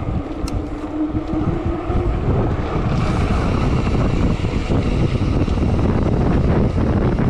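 Wind buffeting the microphone of a bike-mounted action camera on a fast downhill descent: a dense low rush that grows louder about two seconds in and then holds steady. A thin steady whine sounds over it for the first two seconds.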